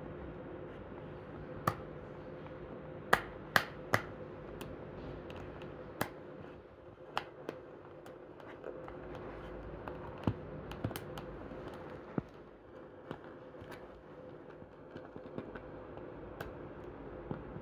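Irregular sharp clicks and taps of a screwdriver against small screws and the hard plastic of a toy car's packaging as the screws are worked loose, over a steady background hum.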